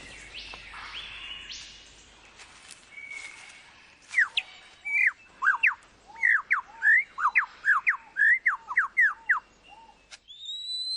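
Superb lyrebird singing: fainter whistles at first, then from about four seconds in a loud, rapid run of sharp whistled notes that sweep up and down, about two a second.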